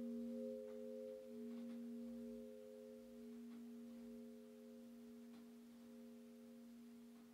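Two church bells dying away after ringing: a lingering hum of a few steady tones that slowly fades, with a few faint knocks from the still-swinging bells.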